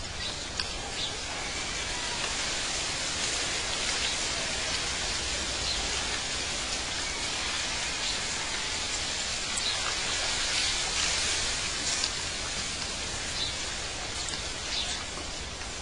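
Steady outdoor nature-ambience hiss, like rushing water, with a few faint short chirps scattered through it.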